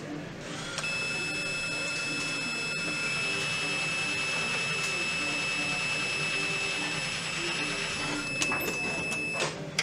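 Buzzer of a repaired KTE motor controller sounding one steady high-pitched tone, switched on about a second in and off near the end with a click, as the controller's start and stop functions are tested and work.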